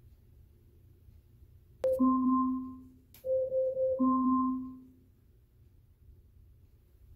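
Amazon Echo smart speaker's Alexa timer alarm going off, signalling that a 10-minute timer has run out: a marimba-like chime, one note followed by a pair of notes, played twice in a row starting about two seconds in.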